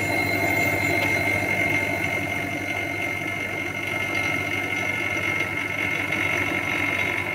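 Small electric vacuum pump running steadily as it draws the air out of a bell jar, a low hum under a constant high whine.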